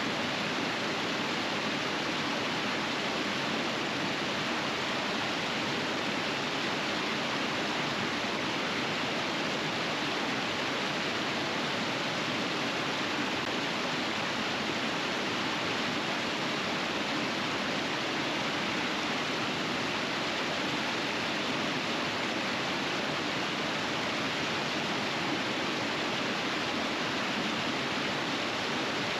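River water rushing steadily over rapids: an even, unbroken rush.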